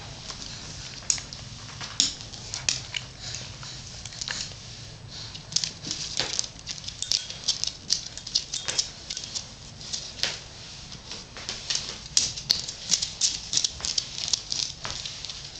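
Dog's claws clicking on a hard kitchen floor: an irregular scatter of sharp ticks, thickest in the second half.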